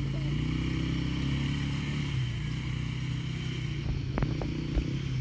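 Quad bike (ATV) engine running at a steady low speed as it drives slowly across grass, with a few sharp clicks about four seconds in.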